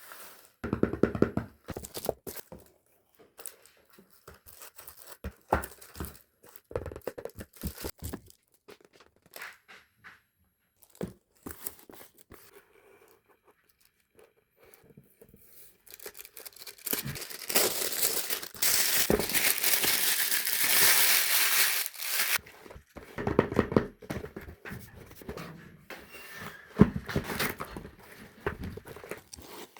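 A package being unboxed by hand: taps, clicks and crinkling rustles, with a loud, continuous ripping noise lasting about five seconds just past the middle.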